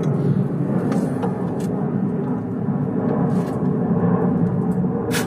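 Steady rumbling background noise, with a few faint clicks.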